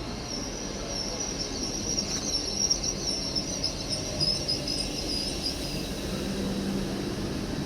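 A train moving at the platform with a steady low rumble and a high, flickering metallic squeal that fades out about six seconds in.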